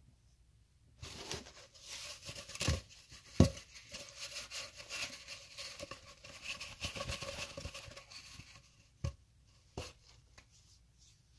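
Fingers rubbing and scratching against a phone right by its microphone for about seven seconds, with sharp taps among the rustling, then two separate knocks near the end.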